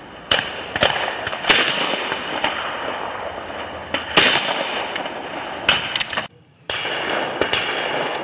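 Shotgun shots at clay targets: two loud reports about a second and a half and about four seconds in, each trailing off in a long echo, among several fainter shots. The sound drops out briefly after six seconds.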